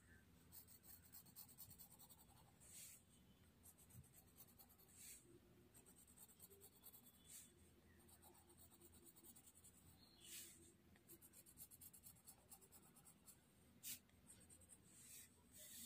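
Faint scratching of a drawing tool on a paper Zentangle tile: many short, quick strokes, with a few louder ones spread through.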